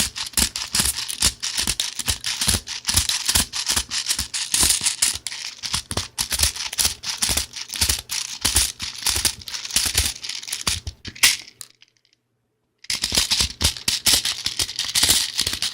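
Airsoft speed loader pushing BBs into a mid-cap magazine: a fast, irregular clatter of plastic clicks and rattling BBs as the loader is pumped and shaken. It breaks off for about a second near the end.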